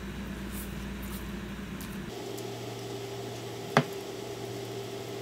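Faint eating sounds of pad thai noodles being slurped and chewed over a steady low room hum. The hum changes abruptly about two seconds in, and a single sharp click comes a little later.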